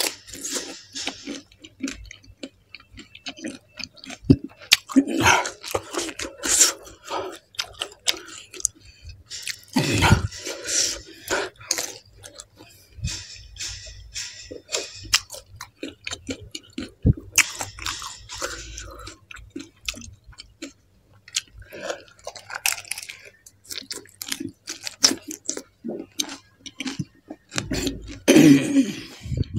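A person biting into and chewing panipuri, the crisp hollow puri shells filled with spicy water, crunching and chewing with many irregular crackly clicks.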